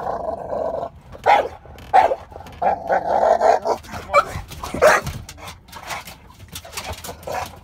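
Dog barking as a guard at a stranger outside the car window, a run of about six sharp barks inside the car cabin that die down after about five seconds.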